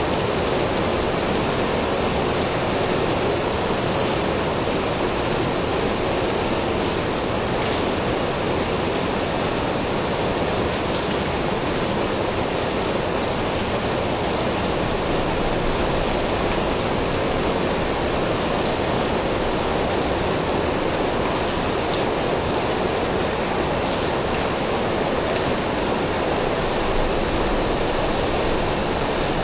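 Rain falling steadily, an even, unbroken rushing noise with no let-up.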